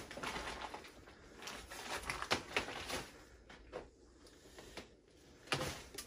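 Faint, irregular crunches and clicks of footsteps and shuffling on a debris-strewn floor, quietest a little past the middle.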